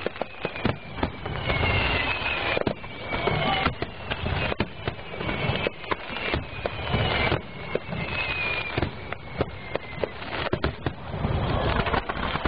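Fireworks finale: a dense, irregular barrage of bursting shells, with several whistles sliding slowly down in pitch over the bangs.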